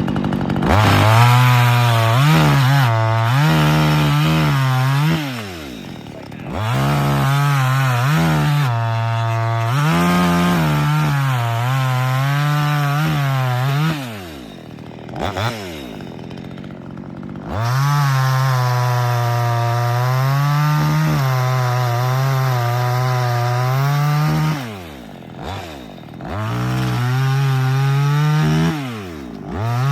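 Dereal chainsaw running at full speed, spinning down and revving back up about five times as the trigger is released and squeezed again, plausibly while cutting wood.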